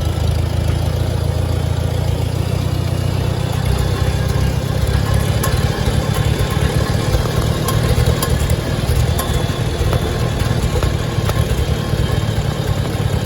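1955 Farmall tractor engine running steadily as the tractor is driven along, a continuous deep rumble.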